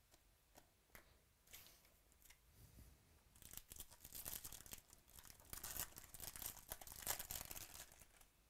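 A 2017 Topps Chrome trading-card pack's foil wrapper is torn open and crinkled by hand. A few soft clicks of cards being handled come first, then from about three seconds in a dense crackling of tearing and crumpling that stops shortly before the end.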